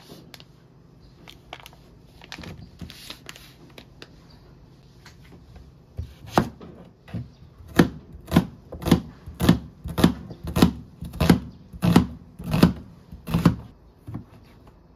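Chef's knife slicing a red onion on a plastic cutting board: about a dozen even cuts, each a sharp knock of the blade reaching the board, a little under two a second, starting about six seconds in.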